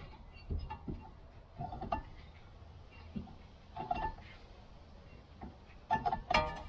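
Metal clinks and short squeaks from a screw-type brake piston compressor tool being turned by hand in a front brake caliper, pushing the caliper piston back in. The sounds come in small irregular groups, about one a second, with a louder cluster near the end.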